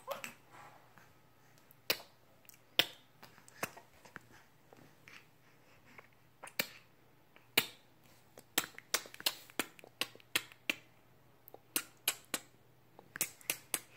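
A string of sharp, irregular clicks, sparse at first and coming thick and fast in the second half.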